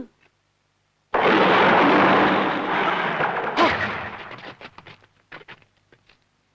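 A loud explosion effect starts suddenly about a second in. The blast holds for about two seconds, then dies away in scattered crackles and pops.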